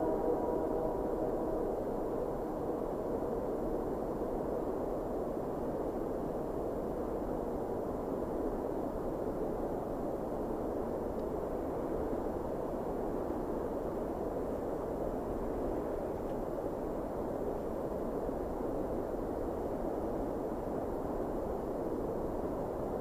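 Steady rumble of a train running past. A chord of held tones, likely the tail of its horn, fades out in the first second or two.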